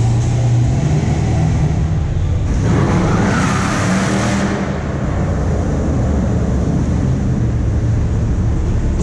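Car engines revving hard during burnouts and donuts, with tyres screeching for about two seconds starting around two and a half seconds in, echoing in a concrete parking garage.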